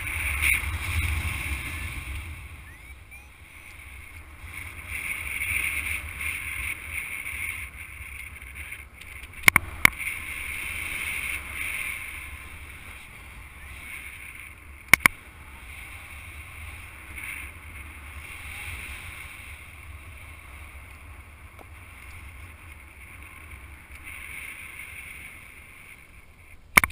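Wind rushing over the camera microphone in paraglider flight: a steady rush with a low rumble that swells and eases, broken by a few sharp clicks around ten and fifteen seconds in.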